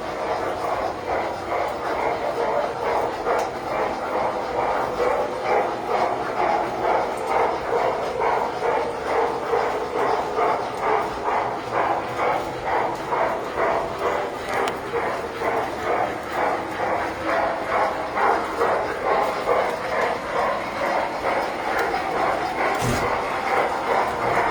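Tinplate toy trains running on a model railroad layout: a steady rhythmic clatter of about two to three beats a second.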